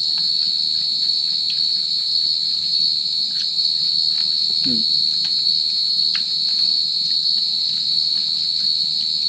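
Crickets trilling in one steady, unbroken high-pitched chorus, with a few faint clicks over it.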